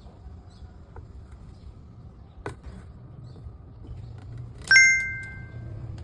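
A few light clicks, then one sharp metallic ding near the end that rings on for about a second.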